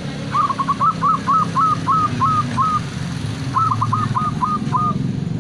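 Zebra dove (perkutut) singing its staccato cooing song: two runs of quick, short coos, about ten and then about six, over a steady low hum.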